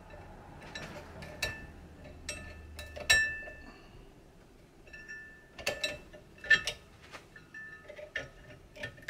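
Pliers and small steel parts clinking and ticking against a bench vise as a spring clip is worked at and will not go in: irregular clicks, several with a short metallic ring, the loudest about three seconds in and again past six seconds.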